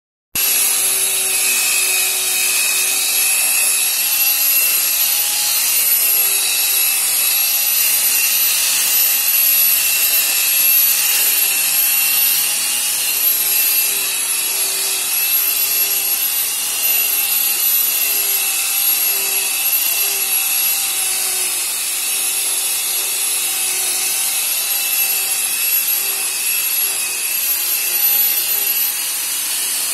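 Electric car polishing machine running steadily as it buffs a car's paint, a motor whine over a high hiss.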